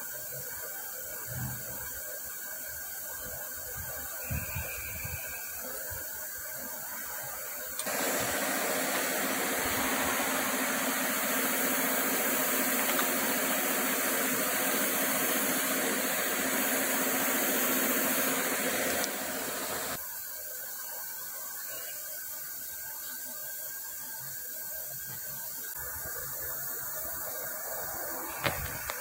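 A workshop machine switched on for about twelve seconds, a steady hum under a loud hiss, starting and cutting off abruptly. A few soft knocks come before it, and a sharp click comes near the end.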